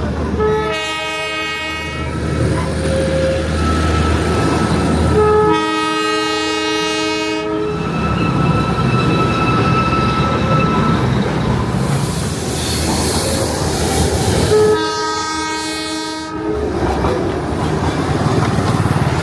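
Darjeeling Himalayan Railway toy train's locomotive horn sounding three times, each blast about two seconds long: near the start, about five seconds in and about fifteen seconds in. Between the blasts the narrow-gauge train runs with a steady rumble and wheel clatter.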